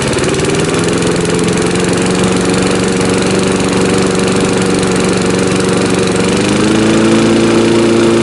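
Briggs & Stratton 3.5 hp single-cylinder flathead mower engine running steadily just after a cold pull-start. About six and a half seconds in, its speed rises a little.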